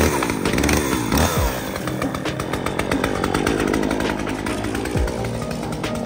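Gas chainsaw catching as it is pull-started, revving up and down at first, then running at high revs as it cuts into a fallen tree limb.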